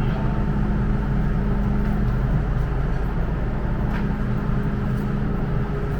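Steady low hum and drone of a metro train standing at an underground station platform, with a few faint steady low tones under a constant noise.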